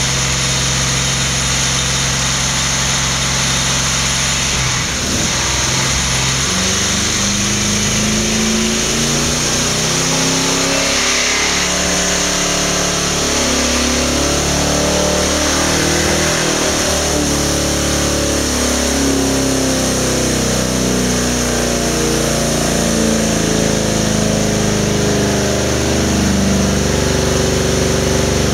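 Holden 308 V8 with a 286 cam running on an engine dyno. It holds a steady speed at first, then from about five seconds in it is revved up and down again and again, its pitch climbing and dropping in steps as it works against the dyno's load.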